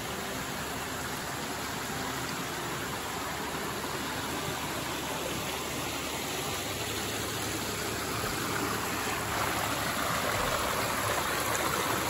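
Shallow rocky forest stream running and splashing over stones in small cascades: a steady rush of water that grows a little louder in the last few seconds.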